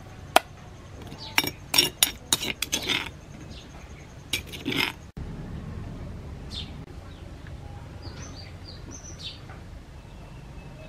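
Metal spoon clinking and scraping against a ceramic plate and stone mortar as papaya salad is served, a string of sharp clinks over the first five seconds or so. A few short bird chirps follow near the end.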